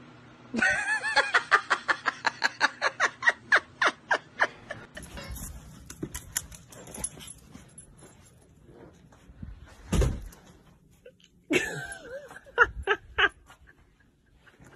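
A person laughing in a quick run of short ha-ha bursts, about five a second, for about four seconds. Later there is a dull thump, then a short series of high dog whimpers.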